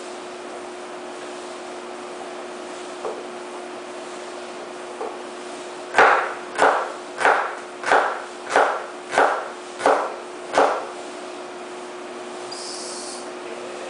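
Kitchen knife chopping shallots on a wooden cutting board: eight firm chops, a little over half a second apart, starting about halfway through, after a couple of light taps. A steady low hum runs underneath.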